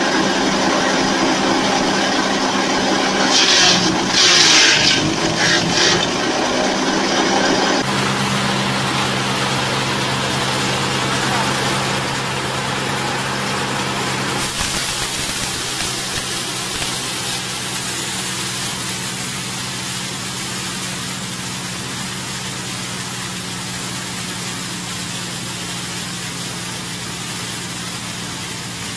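Engine-driven chaff cutter and grinder running, with loud bursts of noise as leafy green branches are fed in and shredded. After a cut about eight seconds in, it runs on with a steady engine hum, and from about fifteen seconds in a louder hiss as it grinds material fed into its hopper into powder.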